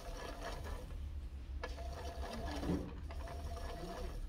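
Toy washing machine running: its small electric motor and plastic gears whirring steadily as the drum turns, with a sharp click about one and a half seconds in.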